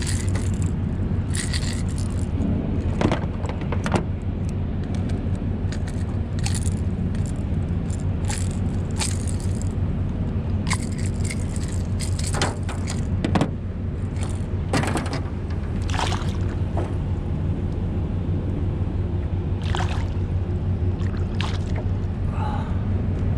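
A striped bass splashing at the water's surface beside the boat as it is landed by hand and released. Short splashes and knocks come again and again over a steady low rumble.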